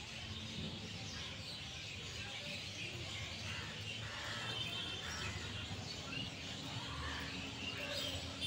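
Birds chirping over steady outdoor background noise, with a faint low steady hum coming in about six seconds in.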